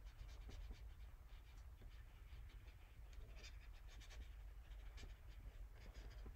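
Faint, irregular scratches and light ticks of a small paintbrush dabbing and stroking on watercolour paper, over a low steady hum.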